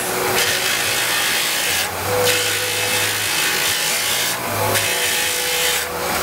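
Stone-cutting saws and grinding wheels working jade, a steady gritty hiss over a low motor hum, dipping briefly a few times.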